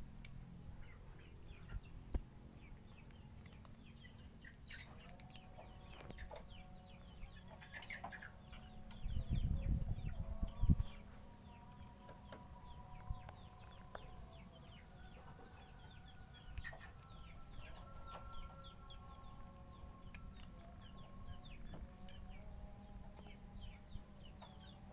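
Background bird calls: many short high chirps throughout, with several longer held notes from about six seconds on. About nine seconds in, a cat's fur brushes the phone's microphone for nearly two seconds, a loud low rubbing rumble.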